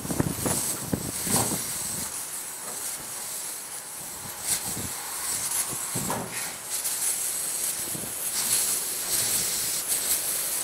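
Air hissing steadily out of a punctured car tire around a tire-plug reaming tool worked into the hole. A few short scrapes and knocks from the tool come through the hiss.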